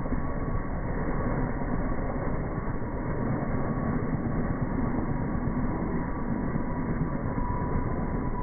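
Helicopter running steadily: a constant engine and rotor drone with a faint whine over it.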